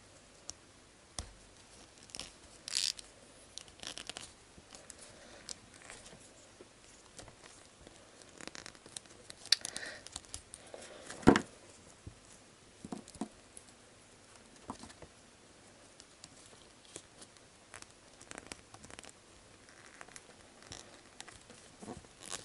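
A small plastic doll and its tiny clothes being handled and fitted together: scattered light clicks, scrapes and rustles, with one sharper click about eleven seconds in.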